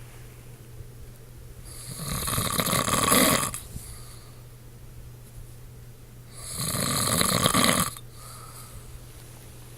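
A man snoring in his sleep: two long snores about four seconds apart, each lasting about a second and a half.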